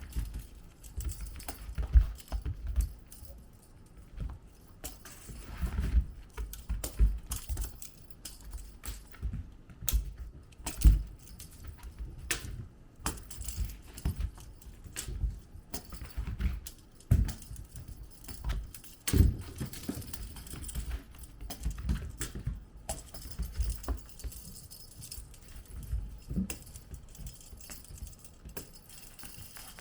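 Kittens playing on the floor: scattered irregular thumps, taps and light rattling clicks as they scamper and bat at toys.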